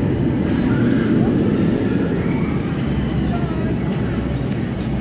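Indistinct voices of a crowd over a steady low rumble.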